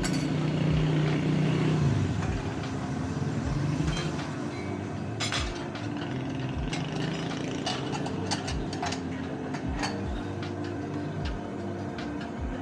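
Vehicle engine running steadily, its hum louder for the first two seconds and then easing off, with scattered clicks and rattles.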